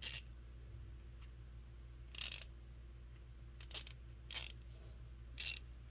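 Blackhawk thin-profile 72-tooth ratchet worked back and forth in short strokes: five quick bursts of fine metallic clicking from its ratchet mechanism, one at the start and four in the second half.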